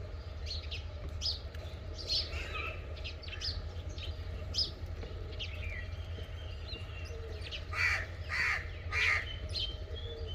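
A crow cawing three times in quick succession about eight seconds in, over many short, high chirps from small birds throughout and a steady low hum.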